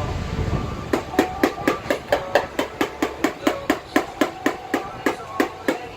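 Rapid, even light taps of a tool on a car body panel, about four a second, starting about a second in, each with a short metallic ring: the tapping-down step of hail dent repair.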